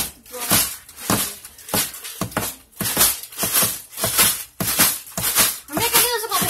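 Plastic zip bag of ice and ice-cream mix being shaken hard by hand, rattling and crinkling in an even rhythm of about two shakes a second.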